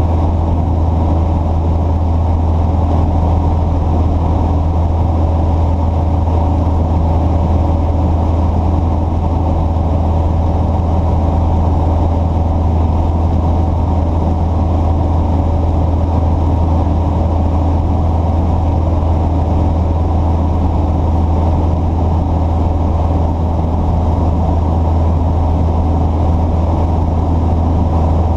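An engine running steadily, a constant low drone with no revving or change in level.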